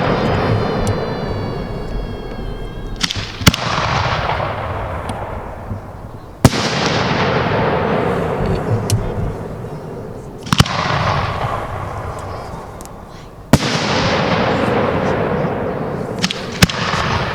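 Aerial fireworks bursting: five sharp bangs about three seconds apart, each followed by a long hissing, crackling tail that fades away.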